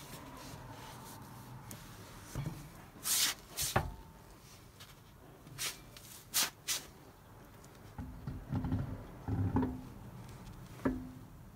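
Tesla Model 3 alloy wheel being lifted and worked onto the hub and its studs: a series of sharp knocks and scrapes of the rim against the hub, the loudest a few seconds in.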